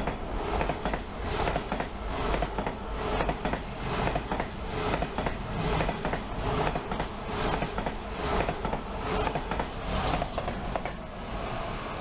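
ICE 1 high-speed train's passenger cars passing at speed, with a dense, irregular clatter of wheels over the track. The noise eases slightly near the end.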